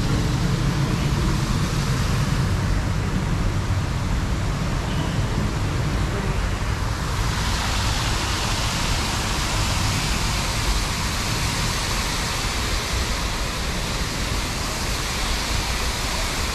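Steady rushing of water pouring over an artificial rock cascade into an outdoor swimming pool, growing louder about seven seconds in, over a low rumble.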